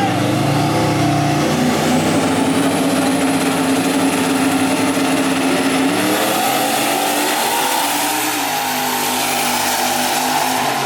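Drag car engine at full throttle, accelerating hard down the strip. Its pitch climbs, then drops and climbs again about six seconds in as it shifts gear, with a thin high whine rising over it.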